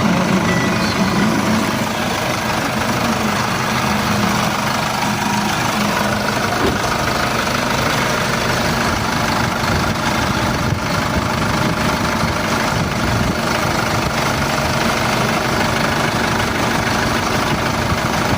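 Isuzu 4JH1 four-cylinder diesel engine idling with a knock, which the title ties to the injector nozzle tips. The engine speed wavers for the first two seconds, then settles into a steady idle.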